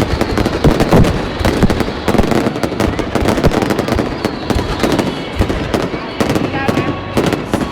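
Fireworks going off in rapid succession: a dense, continuous run of bangs and crackles, with crowd voices underneath.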